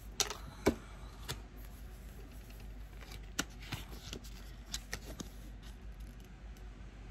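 Cards of a new tarot deck being handled: irregular light taps and rustles of card stock.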